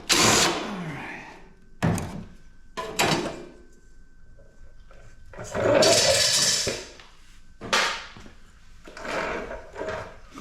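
Metal parts of a PTAC air conditioner being handled and worked loose for scrap: a string of clunks, knocks and scrapes. The loudest comes right at the start, and a longer scraping rattle runs for about a second in the middle.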